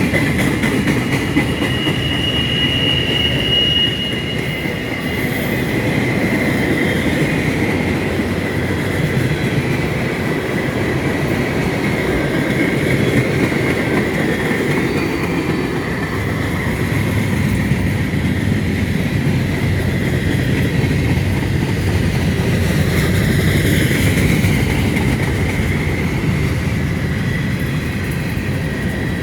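Freight train rolling steadily past, with a continuous rumble of wheels on rail and thin steel wheel squeal; a stronger, higher squeal rings out briefly a second or so in.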